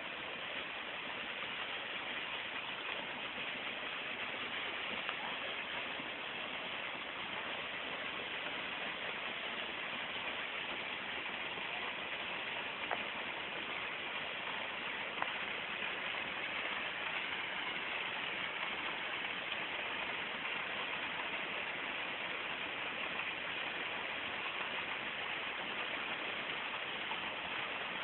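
Waterfall pouring down onto rocks: a steady rush of falling water, with a few faint clicks.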